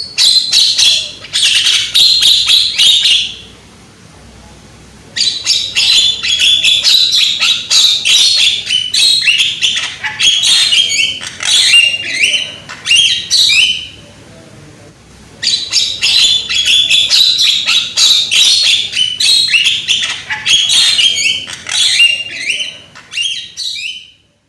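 Javan myna (jalak kebo) singing loudly: fast, chattering runs of harsh notes in three bouts, breaking off briefly about four seconds in and again about fourteen seconds in.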